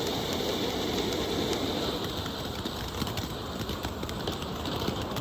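A small consumer firework fizzing and crackling steadily, with many fine ticks and no loud bang. It is a weak ground item that gives off little noise.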